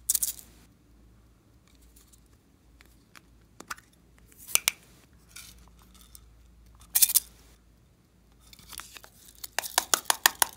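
Sequins and small plastic beads rattling and clicking as they are shaken out of hollow plastic toys into a glass bowl of slime, with sharp plastic handling sounds. Several short bursts, then a run of quick clicks near the end as beads pour out.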